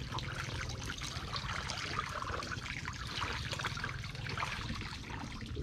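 Shallow water sloshing and trickling as a person wades through it over mud, with a steady scatter of small ticks and crackles.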